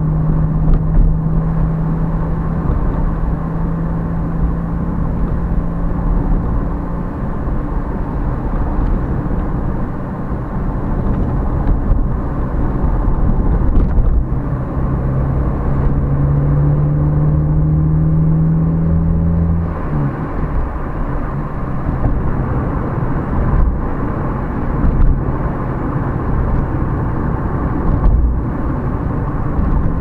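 Car engine and tyre noise heard from inside the cabin while driving. The low engine hum climbs slowly, then drops about two-thirds of the way through.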